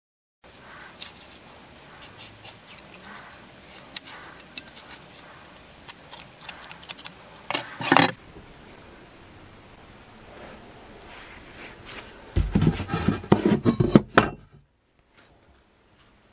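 Steel billhook blade handled and scrubbed on a wooden workbench: scattered metallic clinks and scrapes, a sharper clatter just before the middle, then about two seconds of hard rubbing with knocks as the blade is scrubbed with a pad.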